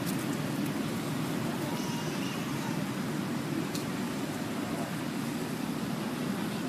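Steady low rumbling background noise outdoors, with a few faint, brief high chirps about two seconds in.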